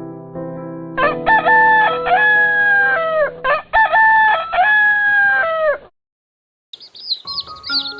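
Rooster crowing twice, each crow a long call of about two seconds. High, rapid bird chirps start near the end.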